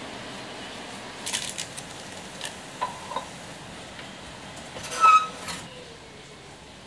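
Small items handled at a portable gas stove: several light clicks and knocks, then a louder clink with a brief ringing tone about five seconds in, over a steady low hiss.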